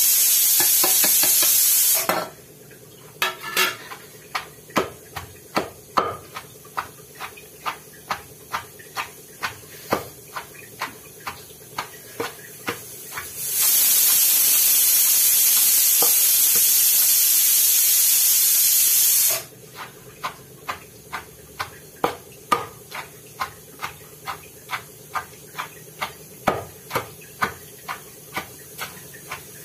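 Pestle pounding chopped cucumber and onion in a stone mortar, with regular strokes about two to three a second. Twice the pounding gives way to a loud steady hiss that starts and stops suddenly, at the start and in the middle.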